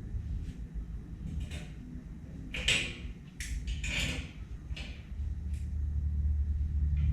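Sliding gate rolling along its track with a low rumble, broken by several sharp knocks and rattles. It settles into a steady low hum for the last two seconds.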